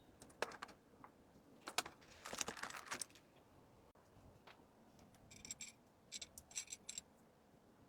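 Small packed merchandise being handled: light clicks and short rustles, then, around the middle and later, several quick bursts of light metallic jingling like small charm bracelets or trinkets clinking.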